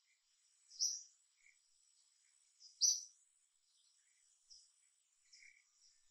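Birds chirping: a sharp, high chirp about every two seconds with softer, lower calls in between, over a faint steady high-pitched tone.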